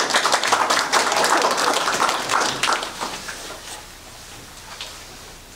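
A small crowd clapping, with some laughter; the applause dies away about three seconds in, leaving a quiet room murmur.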